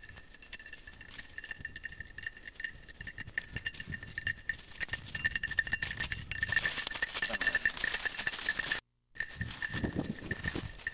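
A bird dog's collar bell jingling steadily as the dog works through cover, a constant small ringing with many quick clinks. Brushing through undergrowth grows louder about halfway through, and the sound cuts out for a moment near the end.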